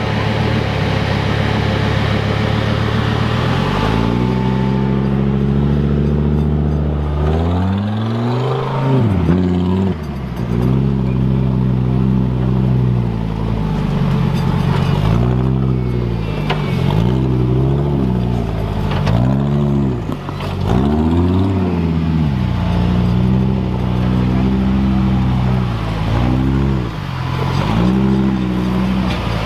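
Off-road vehicle's engine, steady at first. About four seconds in it starts revving, and from then on it rises and falls in pitch over and over, a rev every second or two.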